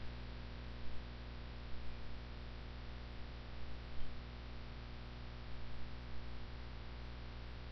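Steady electrical mains hum with a faint even hiss, and a few faint clicks now and then.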